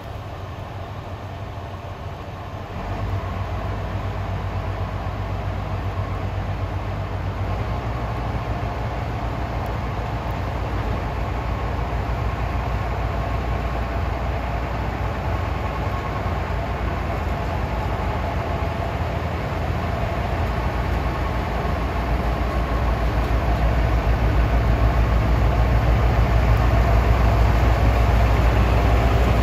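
Diesel engines of two coupled TMC400A track motor cars working at low speed as they haul a train of rail-loaded flat wagons, a steady low drone that steps up in level about three and seven seconds in and grows louder as the cars draw near.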